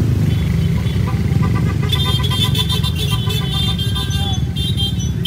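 Engines of a large pack of motorcycles running together at slow speed, a steady low rumble. Many horns beep over and over, a few at first and then densely from about two seconds in.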